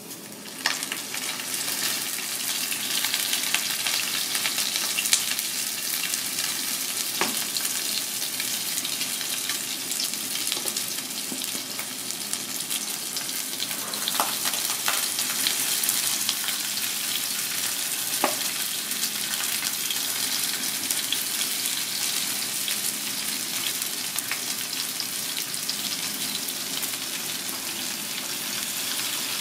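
Dusted, peppered crocodilefish fillets frying in an oiled pan: a steady, dense sizzle with scattered pops and crackles, starting sharply about a second in.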